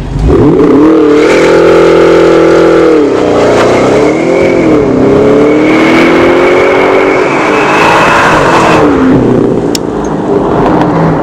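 Audi S7's 4.0-litre twin-turbo V8 through an AWE Touring catback exhaust, driven hard as the car accelerates past. The engine note climbs and drops in pitch several times, rises steadily for a few seconds, then falls away near the end.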